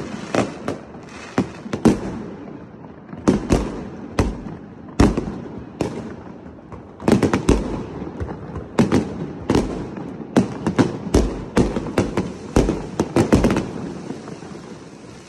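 Aerial fireworks bursting in an irregular series of sharp bangs, some in quick clusters, thinning out near the end.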